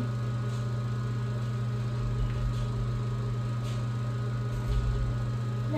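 Steady low electrical hum with several steady higher tones, and two brief low rumbles about two and five seconds in.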